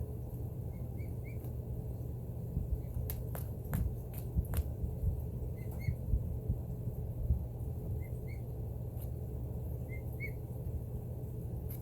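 Emu chicks giving short, soft whistling peeps, mostly in pairs every few seconds, over a steady low rush of air from a heat vent. A few sharp clicks come between about three and four and a half seconds in.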